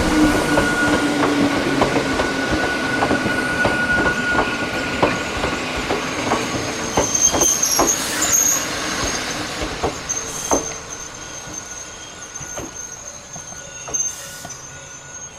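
Hakone Tozan Railway electric train passing, its wheels clacking in quick succession over the rail joints, with a high, steady wheel squeal from about halfway through. The sound fades away over the last few seconds as the train recedes.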